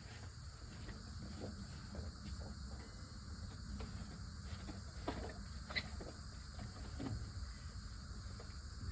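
Insects chirping in a steady, even pulse, with a couple of faint knocks partway through.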